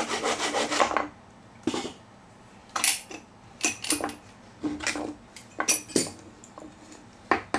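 Hand saw cutting through a glued-up oak board in quick, even strokes for about a second. Then come about ten scattered sharp knocks and clacks of hard wood pieces being set down and handled, some with a brief ring.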